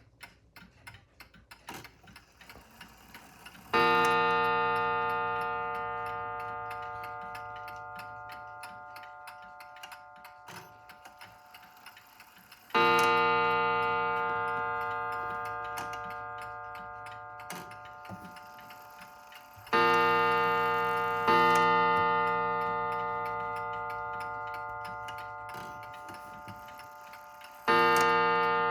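A British time-and-strike mantel clock ticking briskly, then its gong striking five times at uneven spacing. Each stroke rings out with many overtones and slowly dies away.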